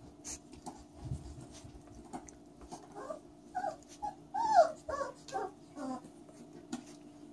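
Catahoula Leopard puppy giving a quick run of short, high-pitched yelping cries, about eight in three seconds, starting about three seconds in and loudest near the middle.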